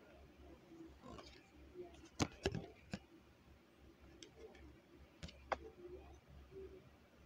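Tarot cards being handled and set on a small wooden display easel: light clicks and taps, three a little after two seconds in and two more past five seconds.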